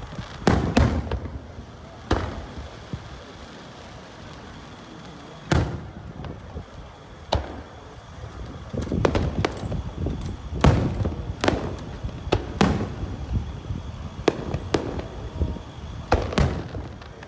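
Aerial firework shells bursting, a string of sharp booms, each with a low rumbling tail, coming at irregular intervals and thickest about nine to thirteen seconds in.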